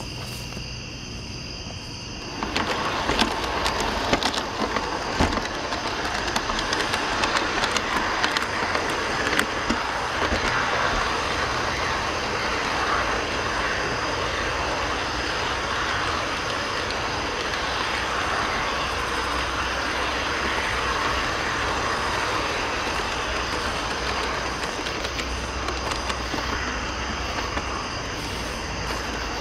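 Model train rolling along the track: a steady rolling noise of wheels on rail with scattered clicks, starting about two and a half seconds in, over steady cricket chirping.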